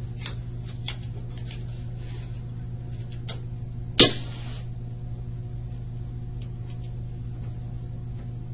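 Steady low hum of a small interview room, with a few faint clicks and one sharp knock about four seconds in.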